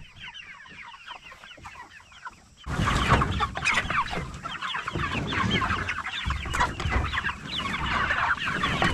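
A flock of white meat chickens peeping and clucking inside a chicken tractor. About three seconds in, a louder rumbling, rustling noise starts and runs on under the calls as the wooden chicken tractor is pulled across the pasture grass.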